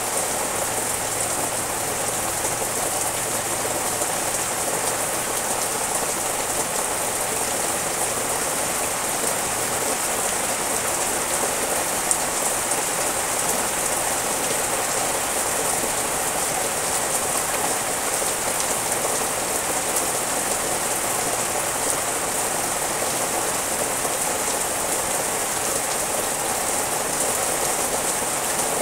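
Steady rain falling on tree leaves and garden plants, an even hiss that keeps on without letup.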